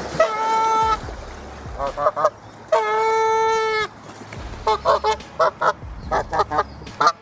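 Swans calling: two long, steady, horn-like honks about a second each, with short rapid calls in between and after them.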